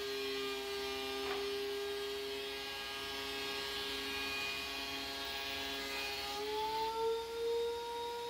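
Electric woodworking machine running with a steady, tonal whine and hum. Its pitch steps slightly higher about six seconds in.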